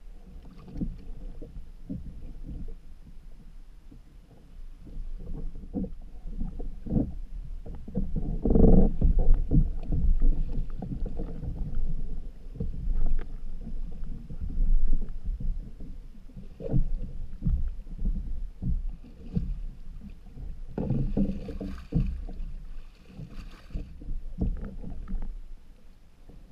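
Water splashing and sloshing against an open canoe, with many knocks and thumps on the hull as a swimmer hauls himself back into the boat over the side. The splashing is loudest about nine seconds in and again in a run of bursts near the end.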